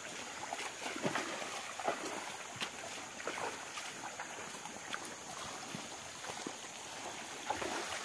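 Footsteps wading and splashing through a shallow rocky stream, in irregular sloshes over the steady sound of running water.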